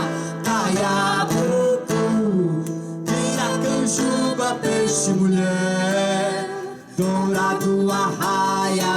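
Live music: strummed acoustic guitar with singing.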